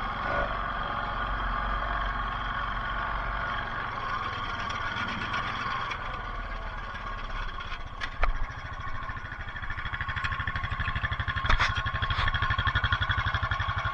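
ATV engine running, settling from about eight seconds in into an idle with evenly pulsing firing. A few sharp clicks sound over it.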